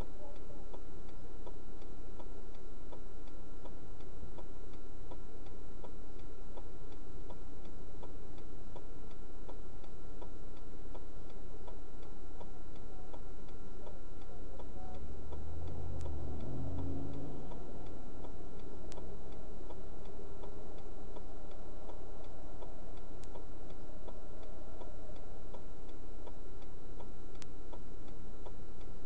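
Steady, evenly spaced ticking over a constant electrical hum, with a brief low rumble about halfway through.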